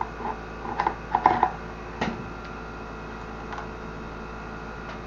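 A few light clicks and knocks from hands handling an electric fan motor and its wire leads as it is fitted into the fan housing, bunched in the first two seconds with a sharper click about two seconds in, over a steady background hum.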